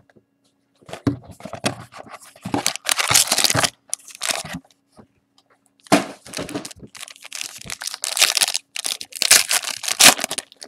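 A trading-card box being opened by hand and a foil card pack torn open. The sound is bouts of rustling, tearing and crinkling foil, with a short lull in the middle.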